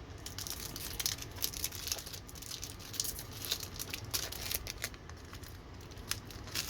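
A hockey card pack's wrapper being torn open and crinkled by hand, a run of quick crackles.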